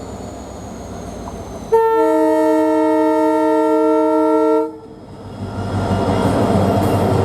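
Diesel locomotive horn sounding one steady chord for about three seconds, then cutting off. Near the end, the rumble and rail noise of a moving train builds up.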